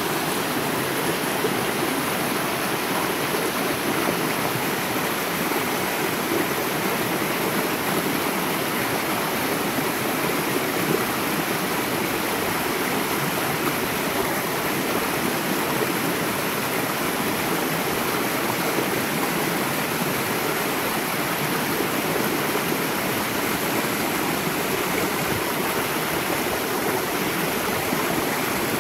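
Shallow mountain stream rushing over rock slabs and small cascades: a steady, unbroken wash of water.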